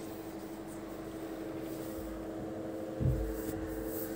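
A steady low machine hum, with a dull thump about three seconds in.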